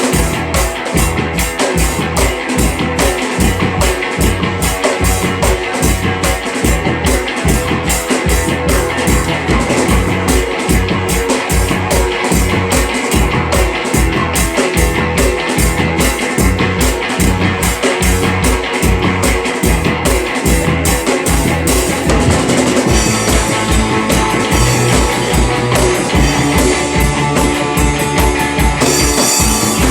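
Rock band playing: a drum kit keeps a steady, fast beat under guitar, and the low part of the music changes about two-thirds of the way through.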